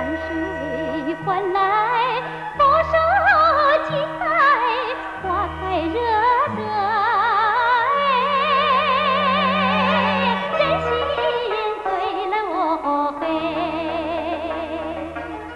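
Background music: a high melody sung or played with wide vibrato, over low bass notes that change every second or two.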